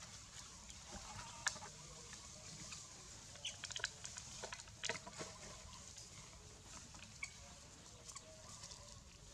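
Dry leaf litter and twigs crackling and clicking in scattered short bursts as long-tailed macaques shift and groom on a log, with a few faint short animal calls in the background.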